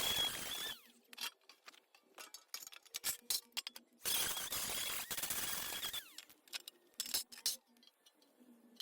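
A handheld power tool running with a steady whine in two bursts of about two seconds each. Light metal clinks and rattles come between the bursts.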